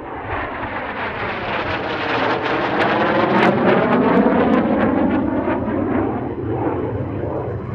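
Jet noise of a single-engine HAL Tejas fighter, powered by a General Electric F404 turbofan, passing overhead: a loud rushing roar with a swirling sweep that dips and rises in pitch. It builds to its loudest about three to four seconds in and eases off a little toward the end.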